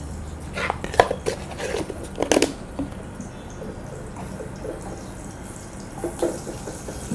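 Ginger-garlic paste frying in hot oil in a nonstick kadhai, stirred with a silicone spatula: a cluster of sharp crackles and spits from about half a second to two and a half seconds in, quieter frying after, and a few more crackles around six seconds in.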